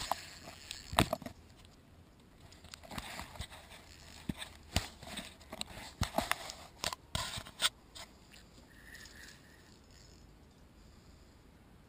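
Clicks, knocks and scrapes of an action camera being handled and moved, close on the microphone, the loudest knock about a second in; the handling stops after about eight seconds.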